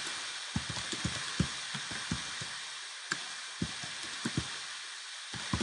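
Computer keyboard typing: irregular key clicks, several a second with short pauses, over a steady background hiss.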